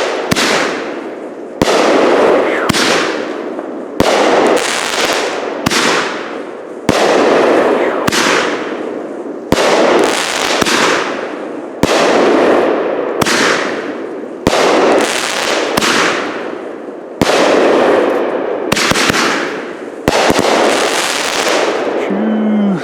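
"Big and Bad" 200-gram consumer repeater cake firing shot after shot, about one every one and a half seconds. Each shot is a sharp bang followed by a fading hiss as the effect bursts and burns out. About a dozen and a half shots go off in steady succession.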